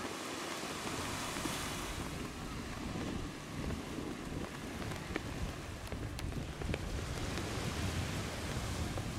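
Small waves breaking and washing up a sandy beach, with wind rumbling on the microphone. The surf hiss swells briefly about a second in.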